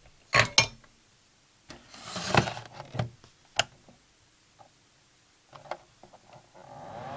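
Plastic knocks, clicks and rubbing as the green plastic soldering fume extractor is handled and set down on the bench, the loudest two knocks about half a second in. Near the end its 12 V fan starts, a rising hum with a rush of air that settles into a steady whir.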